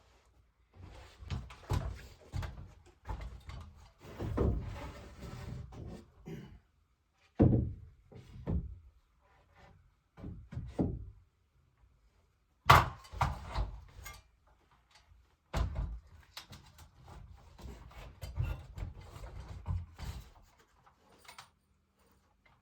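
Irregular knocks, thuds and scraping, like wood being handled and bumped. The loudest, sharpest knock comes about 13 seconds in.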